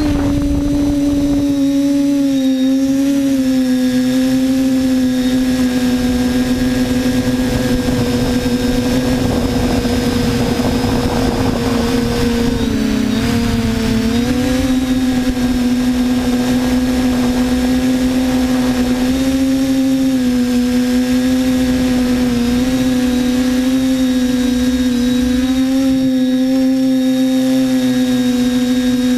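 TBS Discovery quadcopter's brushless motors and propellers whining steadily, heard from the camera mounted on the drone; the pitch wavers slightly and dips briefly about 13 seconds in before rising back as the throttle changes.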